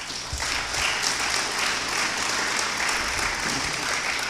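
Audience applauding, a steady round of clapping from a large seated crowd.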